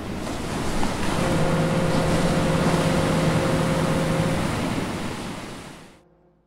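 Sea surf and wind noise that swells in, holds and fades away, with a low steady tone held for about three seconds in the middle.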